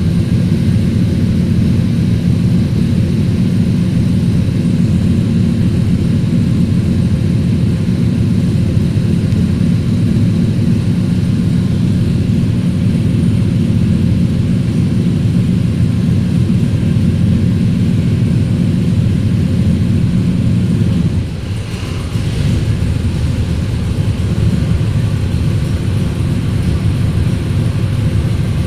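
Stroked 454 big-block Chevrolet V8 in a C3 Corvette idling steadily on a chassis dyno, a low rough drone. It dips briefly in level about three-quarters of the way through, then carries on.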